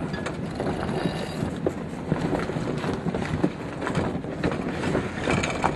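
Wind and water noise aboard a sailing yacht under way, with wind buffeting the microphone and scattered small knocks and clicks.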